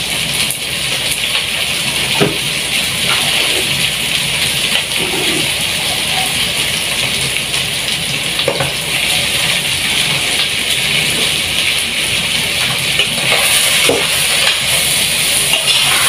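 Steady sizzling of kangkong and fish cooking in a pot on a tabletop stove, with a few light knocks from cookware.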